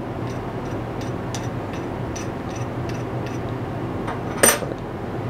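Gentle hand-sanding strokes on a freshly poured lead jig head to smooth the sprue mark, as soft light scratches at about two or three a second, over a steady hum. One sharper scrape comes about four and a half seconds in.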